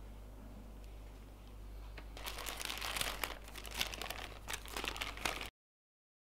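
Thin white paper food wrapper crinkling and crackling as hands unwrap a sandwich. It starts about two seconds in after faint room tone and cuts off suddenly near the end.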